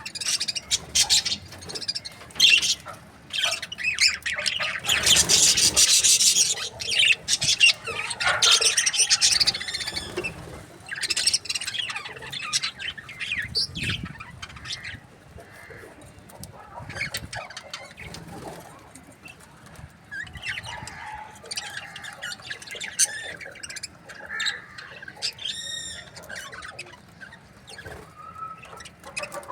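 Budgerigars (budgies) chirping and chattering, many short high calls overlapping, with a louder, busier flurry about five seconds in and a warbled call near the end.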